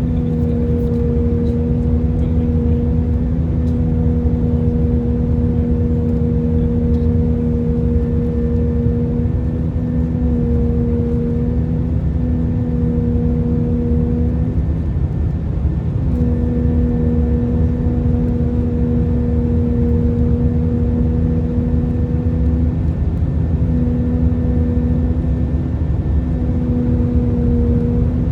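Steady cabin noise inside an Airbus A319 in flight: a deep, even rush with a steady low hum on top. The hum cuts out for a moment about halfway through and comes back. The source of the hum is unknown.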